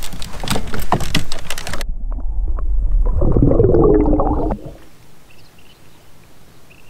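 Sharp clicks and knocks, then muffled underwater sound of an electric trolling motor's propeller running through bubbly water, a loud low rush with a tone that curves in pitch. It cuts off suddenly about four and a half seconds in.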